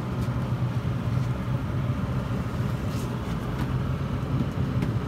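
Boat's outboard motor running steadily at trolling speed, a low hum with wind and water noise over it, and a couple of faint clicks.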